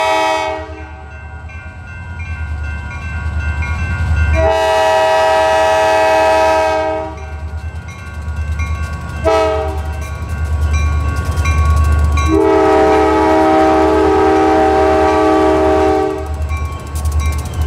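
Diesel freight locomotive sounding its multi-chime air horn in the grade-crossing pattern as it approaches: the end of one blast, then long, short and long. A crossing bell dings steadily under a rising engine rumble. Near the end the wheels clatter over the crossing as the locomotive arrives.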